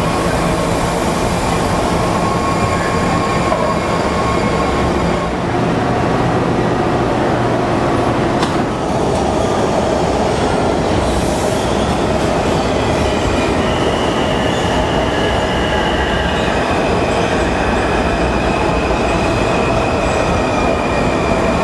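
WMATA Metrorail trains running through an underground station: a loud, continuous rumble of wheels on rail, with steady high tones that come and go, a sharp click about eight seconds in and a short high hiss a few seconds later.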